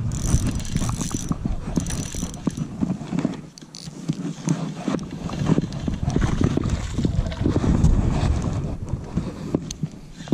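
Spinning reel and rod being handled close to the microphone: irregular mechanical clicking, ratcheting and knocks, with a low rumble throughout.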